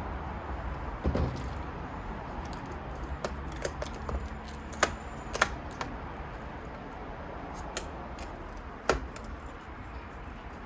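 Scattered small clicks and clinks of metal and plastic parts being handled during the disassembly of an iMac, a few sharp ones standing out, over a steady low hum.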